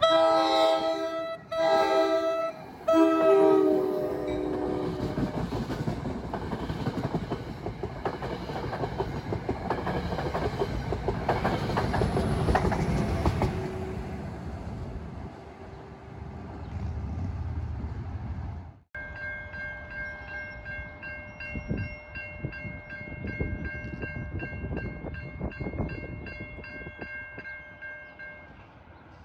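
A New Jersey Transit train's air horn sounds three blasts, the last the longest. The train then passes close by with rolling wheel noise and rail clicks. After an abrupt cut, a steady, rapidly repeating bell-like ringing follows.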